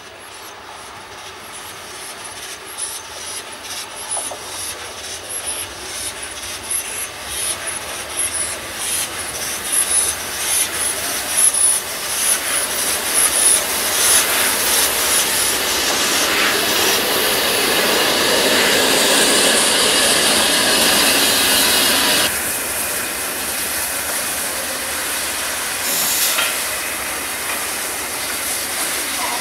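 LNER Peppercorn A1 steam locomotive 60163 Tornado arriving slowly with its train: a run of clicks from the wheels on the rails grows louder as it approaches, then a loud steam hiss that cuts off suddenly about 22 seconds in, leaving a softer hiss.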